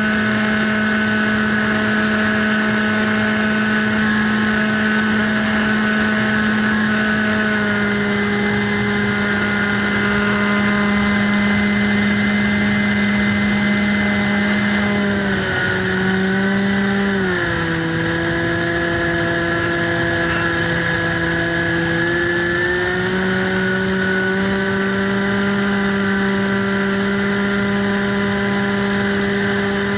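Radio-controlled plane's motor and propeller running steadily, heard from on board. The pitch steps down about halfway through, then climbs back a few seconds later.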